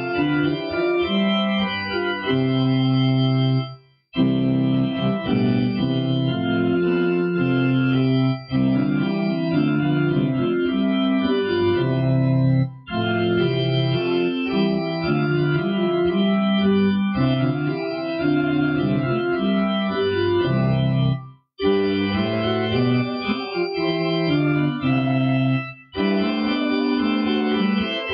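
Organ music: sustained chords played in hymn-like phrases, with a few brief breaks between phrases.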